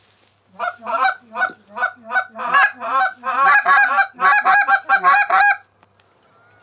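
Goose honking: a rapid run of loud honks and clucks, starting about half a second in and stopping abruptly after about five seconds.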